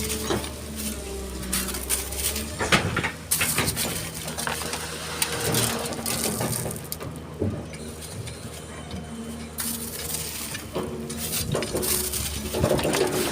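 Excavator's diesel engine running steadily while sand and stones crunch and clatter against its steel bucket, with many sharp knocks scattered through.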